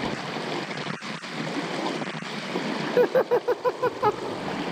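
Shallow creek water rushing steadily over rocks, with splashing as people wade through it. About three seconds in, a person's voice makes a quick run of short sounds.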